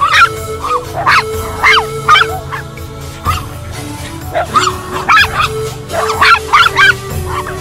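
Small dogs yapping while they play, in quick runs of short, high-pitched yips that come in bursts: at the start, about a second in, and again in the second half. Background music with long held notes plays underneath.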